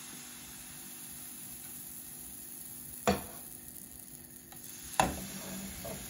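Thin crêpe batter sizzling in a hot nonstick frying pan, a steady faint hiss. Two sharp knocks of the metal ladle, about three and five seconds in.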